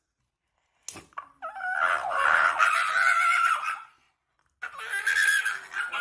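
Shiba Inu screaming as its claws are clipped: two long, high-pitched screams, the first starting about a second and a half in and the second near the end, with a short click just before the first.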